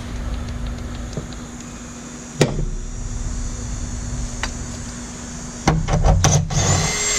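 Hand tools clicking and knocking on metal as the radiator fasteners are undone, over a steady low hum. One sharp click comes about two and a half seconds in, and a cluster of knocks near the end is followed by a short rasping burst.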